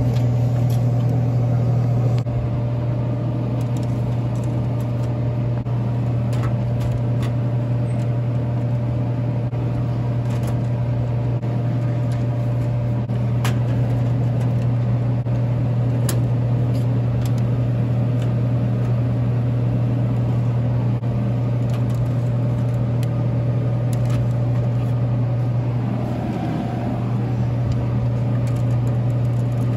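Steady hum of an open refrigerated bottle vending machine's cooling unit, with a few light clicks as plastic bottles are loaded into its columns.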